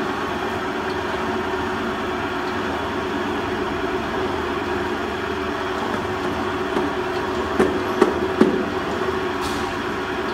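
YK-160 oscillating granulator running steadily as its rotor rocks back and forth, forcing powder through the screen into granules. Three sharp knocks come about seven and a half to eight and a half seconds in.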